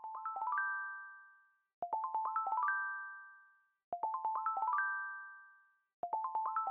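Chime-like electronic music jingle: a quick rising run of about six bell-like notes ending on a ringing chord that fades away, repeated about every two seconds.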